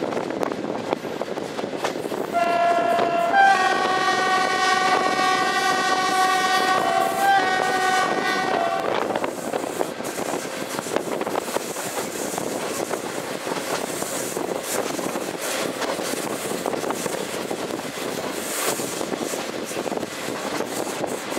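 The train's horn sounds one long blast of about six seconds, starting about two seconds in, a chord of two notes. This is the Polish Rp1 'attention' warning signal. Under it and after it the train runs steadily, with wheels clattering on the rails and wind at the open carriage window.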